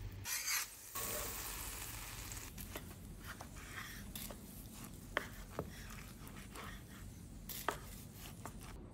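Pan sauce sizzling in a stainless steel pan as a spoon stirs it, fading after the first couple of seconds. Then a knife slices a seared duck breast on a wooden cutting board, with a few sharp clicks scattered through the rest.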